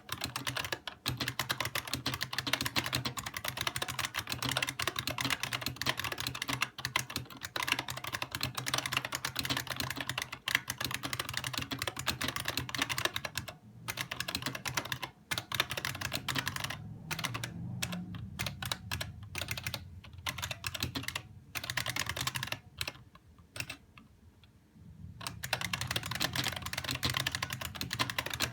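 Continuous fast typing on an IBM Model M Space Saving Keyboard, its buckling-spring keys clicking in a dense stream. There are a few short pauses and a longer break of about two seconds near the end.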